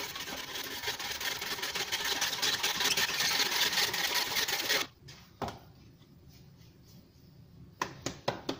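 Handsaw sawing through the rubber pipe that sticks out of the centre hole of a cast concrete weight plate, in fast rasping strokes for about five seconds, then stopping abruptly. A few light clicks and knocks follow near the end.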